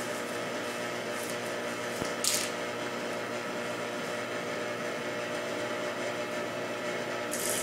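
Electric juicer motor running with a steady drone while leafy greens are pushed into its feed chute, with a brief rustle of leaves about two seconds in and again near the end.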